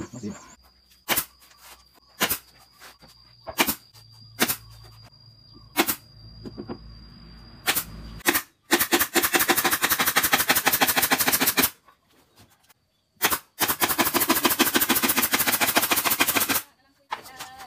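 Pneumatic nail gun fastening the panels of a wooden speaker cabinet. For about eight seconds it fires single sharp shots, roughly one a second. Then it fires two runs of rapid repeated shots, each about three seconds long, with a short pause between them.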